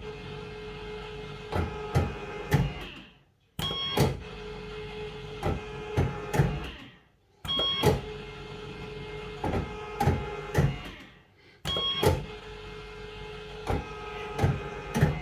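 Bell-Fruit Firecracker fruit machine reels spinning, four times in a row about every four seconds. Each spin starts with a clunk and a short high tone, the reel motors hum steadily, and three clunks follow as the reels stop one after another.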